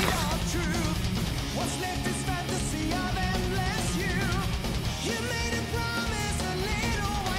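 Rock music with a singing voice and guitar over a steady, driving beat.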